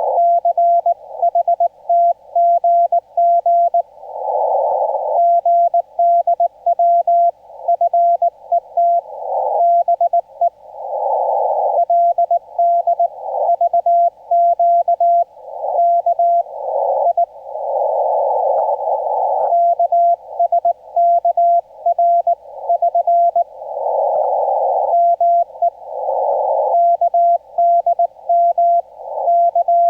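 Ham radio transceiver sounding a steady Morse code tone, keyed in quick dots and dashes of Korean Morse code. In the gaps between groups a narrow band of receiver hiss swells up, then cuts off when the keying resumes.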